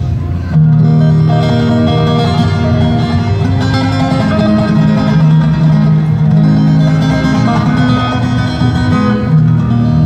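Acoustic guitar played through a stage PA system, a melody of plucked notes over held low notes.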